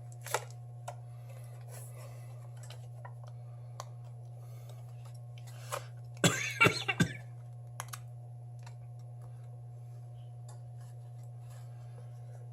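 Small clicks and taps of a pry tool working at the glued back of a Samsung Galaxy S7 Edge, with a loud burst of scraping and creaking about six seconds in, lasting about a second, as the tool forces against the sticky adhesive. A steady low hum runs underneath.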